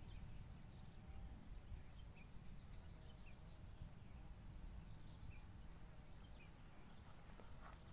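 Near silence: faint outdoor ambience with a low rumble, a steady high-pitched whine and a few faint short chirps.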